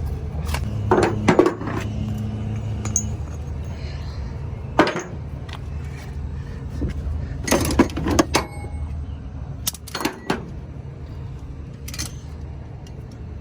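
Diesel engine idling with a steady low rumble, with several sharp knocks and clanks over it.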